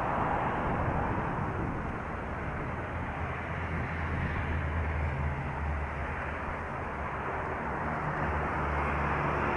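Road traffic and wind noise on the microphone while riding a bicycle, a steady rushing noise, with a low engine hum from a passing vehicle through the middle.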